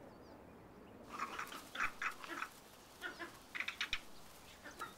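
Bird calls: from about a second in, several quick runs of short, harsh, quacking calls, with a few faint thin chirps before them.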